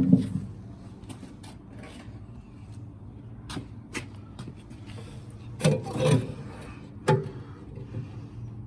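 Scattered light clicks and knocks of metal parts being handled while a pellet smoker's heat rod is fitted, loudest in a short cluster about six seconds in, over a steady low hum.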